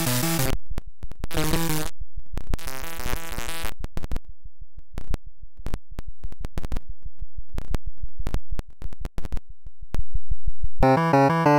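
Oscilloscope music: synthesized electronic tones whose stereo signal draws the green figures on an XY oscilloscope. Buzzy pitched tones in short blocks during the first four seconds give way to a long stretch of sparse clicks and short pulses at uneven spacing. Loud, dense buzzing chords come back in about eleven seconds in.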